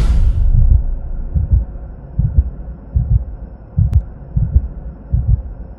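Intro sound effect of a deep heartbeat: low double thumps repeating a little under once a second over a faint hum, as a whoosh fades out at the start, with one sharp click about four seconds in.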